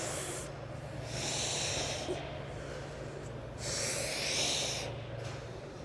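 A man breathing hard and forcefully while straining through leg-curl reps. There are two long, noisy breaths, one about half a second in and one near four seconds, over a steady low hum.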